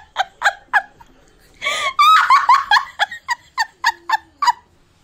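A person laughing in short, rhythmic bursts: a few laughs in the first second, then a longer run of laughter from about a second and a half in until near the end.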